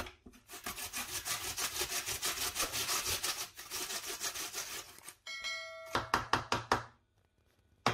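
Peeled raw potato being grated on a stainless steel box grater: quick, rhythmic rasping strokes. About five seconds in the strokes pause while a short ringing tone sounds, then a few more strokes follow before they stop.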